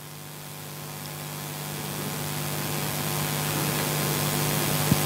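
Steady electrical hum with hiss, slowly growing louder, and a single click near the end.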